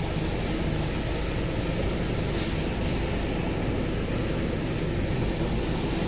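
Steady rumble and hiss of a GAZelle Next van's running engine heard from inside the cab.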